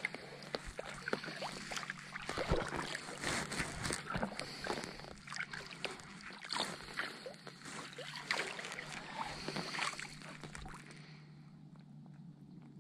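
Double-bladed kayak paddle strokes on calm water: the blades dip in and splash on alternate sides, with dripping water between strokes. The strokes stop about eleven seconds in and it goes quieter as the kayak glides.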